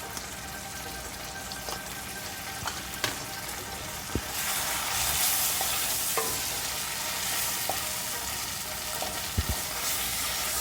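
Onion paste frying in butter in a kadai, a steady sizzle that grows louder about four seconds in, with a few light clicks.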